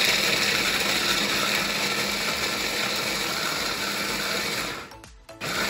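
Electric stick blender on its chopper bowl attachment, grinding cashew nuts. It runs steadily, stops about five seconds in, and starts again just before the end.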